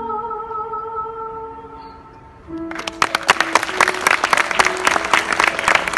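The band's closing chord is held and fades out. About two and a half seconds in, a theatre audience breaks into loud applause, the dense clapping running on to the end.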